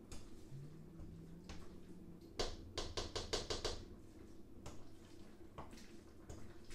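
A spatula stirring thick leafy vegetable soup in a stainless steel pot: soft, wet stirring strokes and scrapes, with a quick run of about five strokes a second near the middle, over a faint steady hum.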